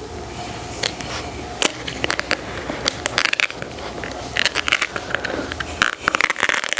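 Adhesive plastic sole protector sheet being handled and pressed onto a sneaker sole: irregular crackling, scraping and sharp clicks. They grow busier from about halfway through.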